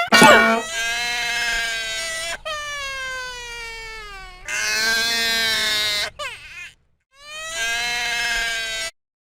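A cartoon character's voice wailing in long, drawn-out cries, four in all, the second sliding down in pitch. It cuts off about nine seconds in.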